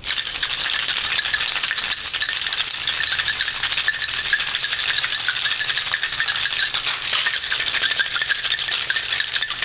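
Ice rattling inside a metal cocktail shaker, shaken hard and fast without a break.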